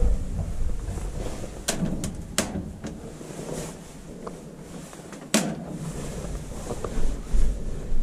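Handling sounds: a few sharp clicks and knocks, about four between one and three seconds in and a louder knock about five seconds in, over a low, uneven rumble.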